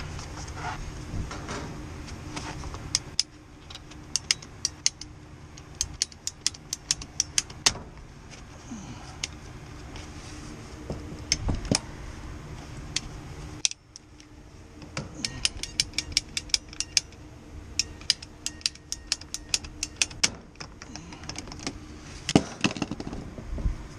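Tubing cutter being worked around a copper refrigerant line, giving runs of sharp metallic clicks, about three to four a second, in two spells with a pause between them, over a steady low hum.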